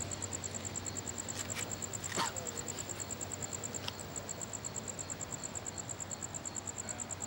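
Crickets chirping in a steady high-pitched pulse, about eight pulses a second, over a low steady hum. A short sliding whistle is heard about two seconds in.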